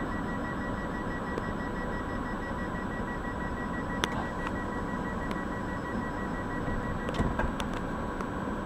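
Z50000 Francilien suburban train at a standstill, its door-closing warning sounding as a pulsing beep over a steady hum. The beeping stops about seven seconds in, followed by a few clunks as the sliding doors shut and lock.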